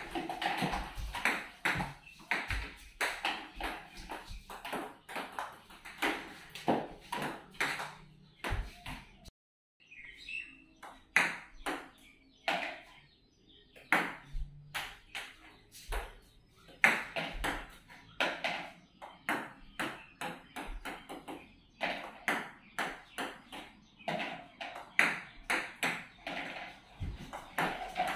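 Table tennis ball clicking off a rubber-faced paddle and bouncing on the table, shot after shot, as balls are served one after another in multi-ball practice. The clicks run at about two or three a second and drop out briefly about nine seconds in.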